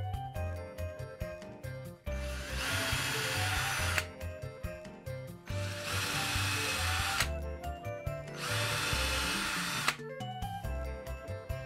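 Cordless drill boring holes into wall siding in three runs of about one and a half to two seconds each, the first starting about two seconds in, over background music.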